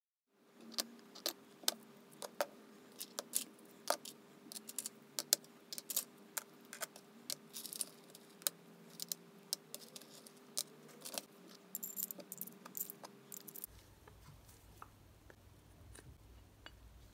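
Small metal bicycle parts clicking and clinking as they are handled, many sharp irregular clicks over a faint steady hum, stopping about three-quarters of the way through. After that only a low steady hum.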